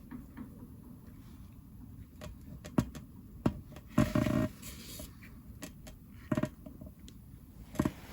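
Scattered clicks, knocks and a short scrape of hand tools, pliers and a screwdriver, working at thorns stuck in a small garden tractor tyre.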